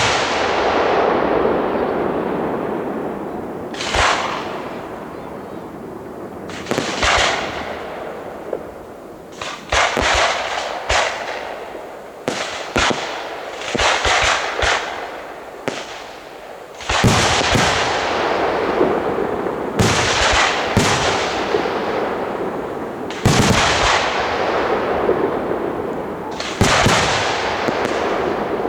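Aerial fireworks display: shells bursting in sharp bangs, some single and some in rapid clusters, each trailing off in a rolling echo. Heavier, denser volleys begin a little past the middle.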